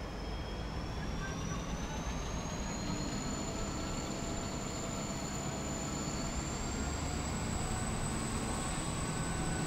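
Train running, a steady rumble with a high whine that rises slowly in pitch and grows a little louder.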